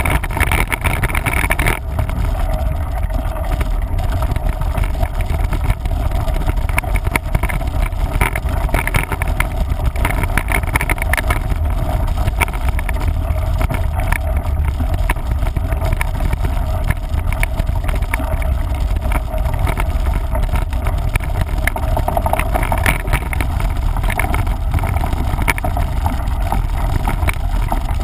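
Wind buffeting the microphone of a camera riding along on a mountain bike, a steady low rumble, with frequent small clicks and rattles from the bike jolting over the trail.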